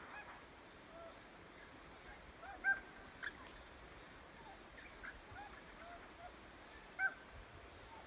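Pied currawongs and parrots calling faintly: scattered short calls and whistled notes, with a couple of louder calls about two and a half and seven seconds in.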